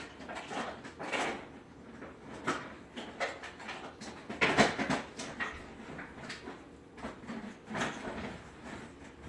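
Kitchen cabinet and kitchenware being rummaged through: irregular knocks, clinks and scrapes as someone hunts in a low cupboard, with the loudest clatter about halfway through.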